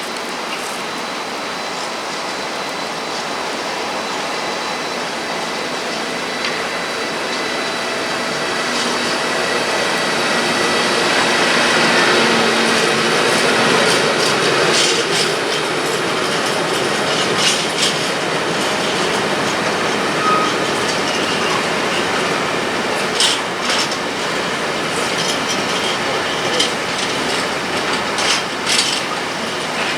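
Intermodal freight train hauled by a Siemens Vectron electric locomotive rolling through the station and slowing to stop at a signal. The rumble of the wagons swells to a peak about halfway through. In the second half come scattered short squeals and clicks from the wheels and brakes.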